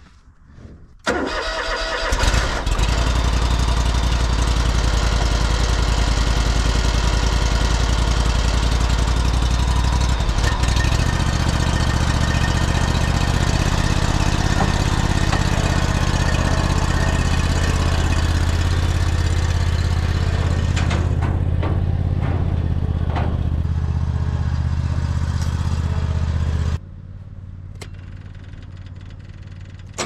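Toro zero-turn mower's engine cranking and catching about a second in, then running steadily. About ten seconds in it speeds up, and near the end the sound drops away sharply.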